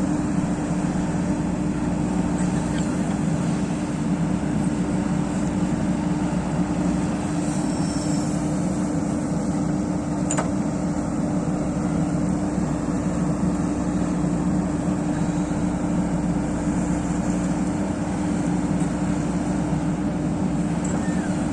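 JCB excavator's diesel engine running at a steady speed, a constant low drone with no change in pitch. A single short click sounds about ten seconds in.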